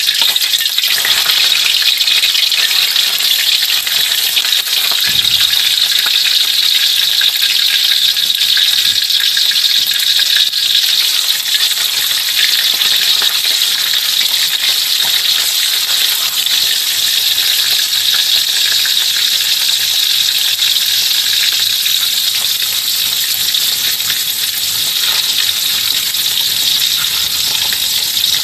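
Small sea fish frying in hot oil in an aluminium pan: a steady, hissing sizzle throughout.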